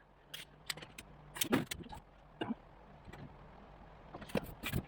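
Scattered sharp metallic clinks and knocks of hand tools and sheet-metal panel being handled, about eight at uneven intervals, the loudest near the end.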